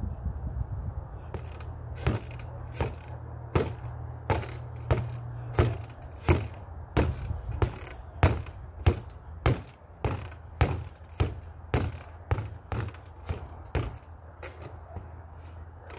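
Boxing gloves punching a free-standing reflex bag: a steady run of sharp smacks, about one and a half a second, starting a second or so in.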